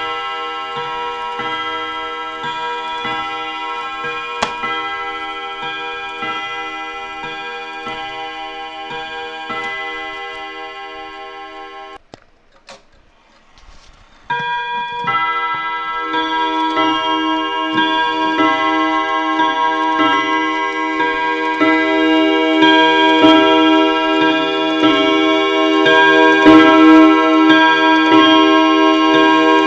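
1950s Mauthe mantel clock ticking while its chime rings in long, overlapping tones. The ringing fades and breaks off about twelve seconds in, then starts again about two seconds later and grows louder.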